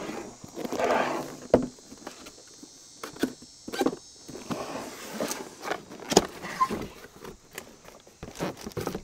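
A long cardboard box being handled and opened on a wooden table: the box sliding and knocking on the tabletop, the lid scraping and rustling as it is lifted, with scattered sharp knocks throughout.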